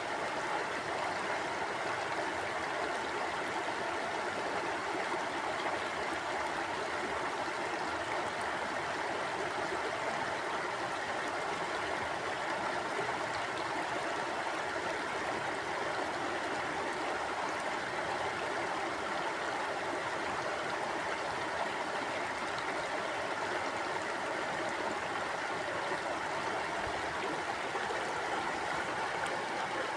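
Mountain river flowing over rocks: a steady rushing of water.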